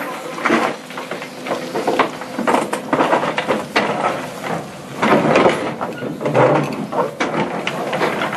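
Excavator bucket working rocky soil and stones in a steel-sided hold: rocks clattering and grinding against the steel in irregular knocks and rumbles, over a faint steady engine hum.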